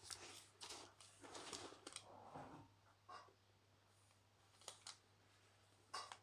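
Faint rustling and scraping of a large handmade faceted lampshade being turned and shifted in the hands, a cluster of soft handling noises in the first two seconds and a few more later, over a faint steady low hum.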